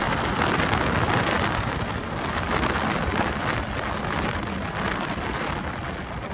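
Wind rushing over the microphone of a moving motorcycle: a steady, loud, noisy rush with no clear engine note.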